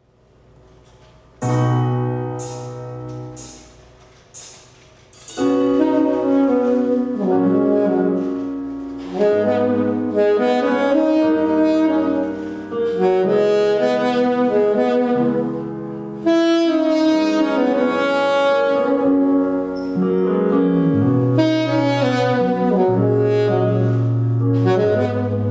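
Jazz saxophone playing over an accompaniment with a sustained bass line. It starts about a second and a half in with four accented hits about a second apart, then the saxophone melody runs on in long held notes.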